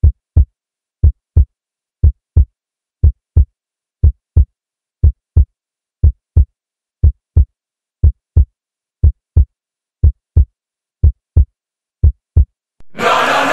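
Heartbeat sound effect: a steady lub-dub double thump about once a second, with silence between the beats. Loud music comes in suddenly near the end.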